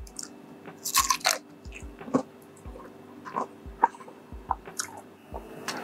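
A person biting and chewing crunchy food close to the microphone: irregular crisp crunches every half second to a second, over a faint steady hum.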